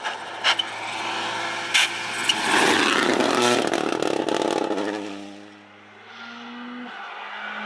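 Rally car going past at speed, its engine loud for a couple of seconds and then fading away, with a few sharp cracks in the first two seconds. Engine sound builds again near the end.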